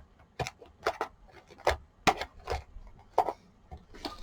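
Parts of an old rice cooker being handled during disassembly: about seven irregular knocks and clicks of hard parts being moved, pulled and set against each other.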